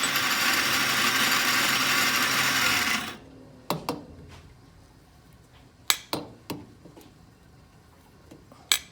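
Coffee grinder running for about three seconds, grinding into the double portafilter, followed by several sharp knocks, typical of the portafilter being tapped and handled.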